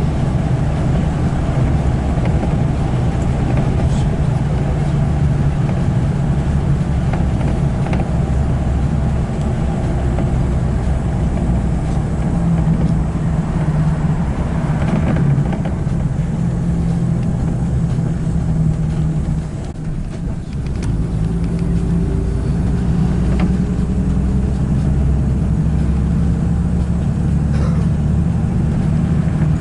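Engine hum and road noise of a moving car heard from inside the cabin, steady and loud, dipping briefly about two-thirds of the way through.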